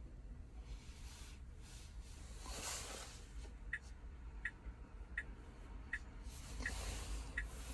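Soft rustling handling noise under a low steady rumble, then a regular series of short high-pitched ticks, about one every 0.7 seconds, starting about halfway through.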